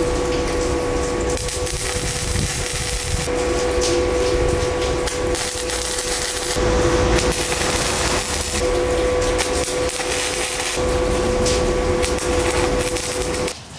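Suzukid Buddy gasless flux-cored wire welder arc crackling and sizzling on mild steel rod in several bursts as tack welds are laid, with a steady hum underneath. It all stops just before the end.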